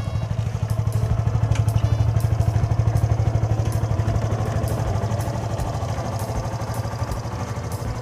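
Yamaha FZ16's single-cylinder four-stroke engine idling, with an even beat of exhaust pulses.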